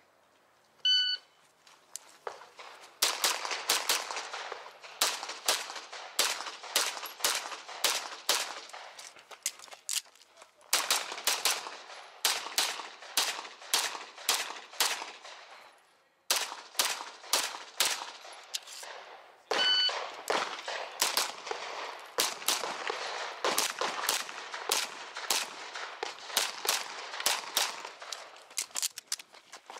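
A shot timer's short beep about a second in, then strings of rapid semi-automatic pistol shots fired from a red-dot-sighted handgun, with short breaks between strings. A second timer beep comes about twenty seconds in, and rapid firing follows again.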